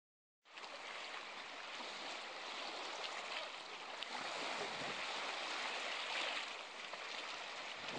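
Shallow lake water splashing and lapping around three dogs wading along the shore: a steady wash of water noise that starts abruptly about half a second in.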